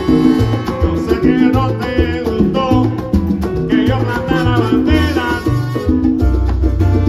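Live salsa band playing: upright bass and congas keeping the rhythm under a horn section's melody lines.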